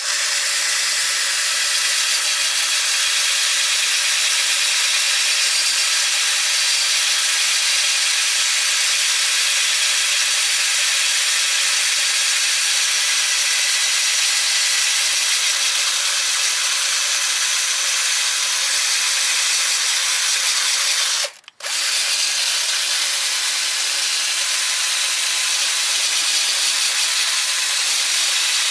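Power-driven wire brush scouring rust off the steel mounting face of a car's rear spindle: a steady, high-pitched scrubbing, with a very brief break about 21 seconds in.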